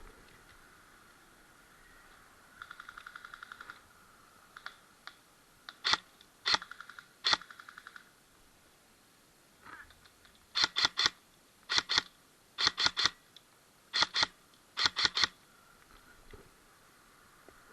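Airsoft guns firing: sharp snapping shots, first singly and then in quick bursts of two to four. About three seconds in comes a fainter, faster rattle of rapid fire.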